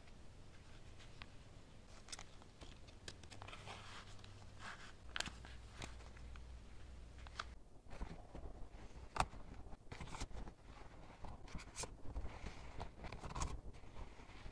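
Hands handling a finished leather wallet: soft leather rubbing and scraping as it is opened and a plastic card is slid into a pocket, with scattered sharp clicks, the loudest about nine seconds in.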